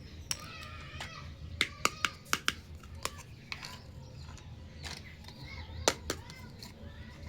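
Small plastic toy kitchen pieces being handled, giving sharp clicks and taps, several in quick succession about one and a half to two and a half seconds in and a few single ones later.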